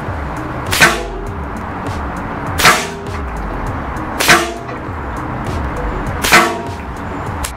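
Diana Stormrider Gen 2 .177 PCP air rifle firing Gamo Rocket pellets, four shots about one and a half to two seconds apart. Each is a sharp crack followed by a short ringing tone.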